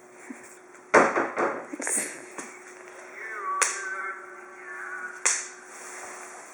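Bubble wrap popping under toddlers' hands and feet: a quick run of sharp pops about a second in, then single pops spaced a second or more apart. A young child gives a short vocal sound about halfway through.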